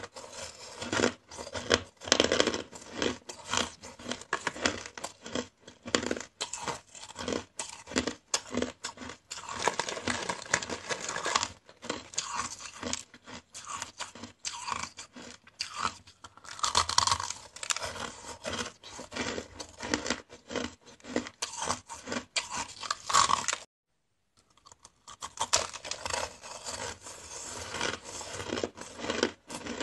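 Close-up crunching of frozen crushed ice being chewed, a dense, irregular run of crisp cracks and crackles, with fingers picking through the ice in a plastic tub. The sound cuts out completely for about a second near the end, then resumes.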